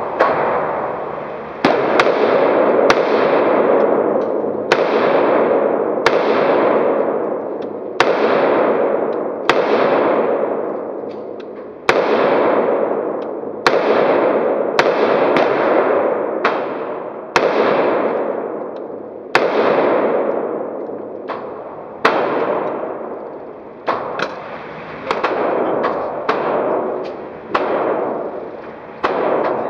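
AR-15 rifle, a Smith & Wesson M&P15 shooting Wolf steel-case .223, firing slow semi-automatic shots one every second or two, each with a long ringing echo in an indoor range. It cycles every round without a stoppage. The shots come quicker near the end.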